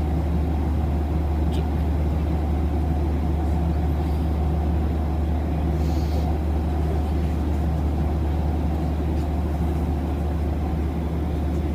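Steady low drone of an airliner cabin in flight: engine and airflow noise heard from a passenger seat.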